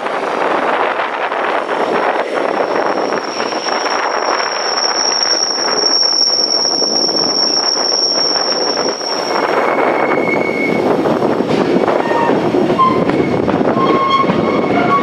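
Passenger train coaches running on the rails with a steady rush of wheel and wind noise. A high, steady wheel squeal sounds from about three to nine seconds in as the train rounds a curve, followed by shorter squeals at lower pitches near the end.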